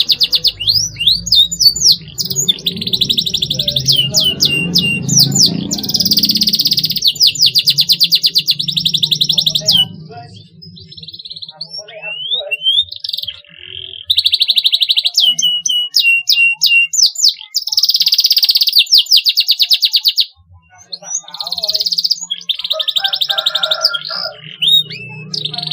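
Domestic canary chirping and trilling: long runs of rapid, high repeated notes mixed with quick sweeping whistles, with short breaks about ten and twenty seconds in.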